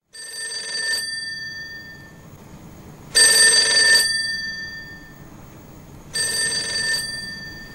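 Push-button desk telephone's bell ringing three times, each ring just under a second long with a short ringing tail, about three seconds apart; the middle ring is the loudest.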